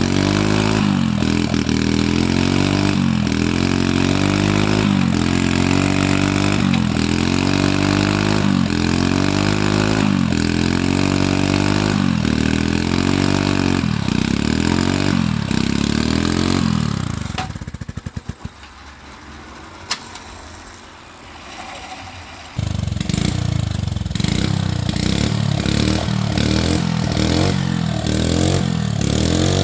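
Small petrol engine revved up and down about once a second. It cuts out with a few sputters about 17 seconds in and comes back abruptly about 5 seconds later, revving again.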